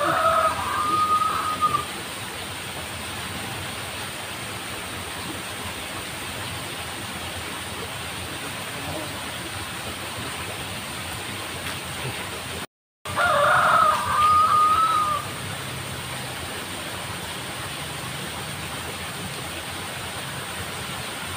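A rooster crowing twice, about two seconds each time and ending in a long held note: once at the start and again about 13 seconds in.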